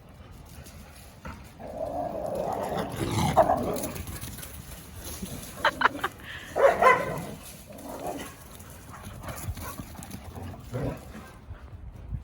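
Dogs playing and barking: a rough, noisy stretch about two seconds in, then a few sharp barks a little past the middle.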